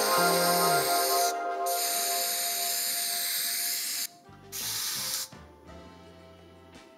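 Aerosol spray-paint can spraying in three bursts: a long hiss broken by a short pause just over a second in, then a second long hiss, then a short final burst about four and a half seconds in. Background music plays underneath.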